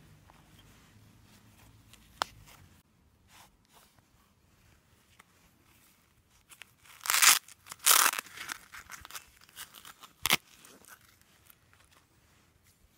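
A leather tool sheath being handled: a single click about two seconds in as the snap is undone, then loud leather scraping and rubbing around seven to eight seconds as a hand auger drill bit is drawn out, and a sharp click a little after ten seconds.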